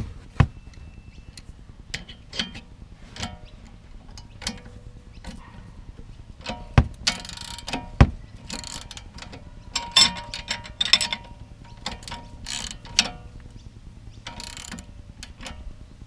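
Hand ratchet clicking in several short runs among sharp metallic clinks of sockets and tools, loosening the lower nut of a car's sway bar link.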